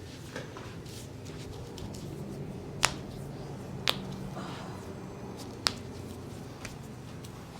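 A few sharp, single pops about a second or two apart, the loudest about three seconds in: joints cracking under a chiropractic adjustment.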